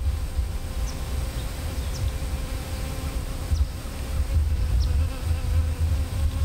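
Steady buzzing hum over an uneven low rumble of wind on the microphone, with short faint high chirps about once a second.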